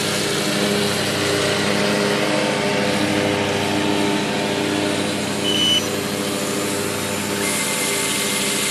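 Cordless drill running steadily, spinning up an RC autogyro's rotor through a plastic prerotator spinner on the rotor hub.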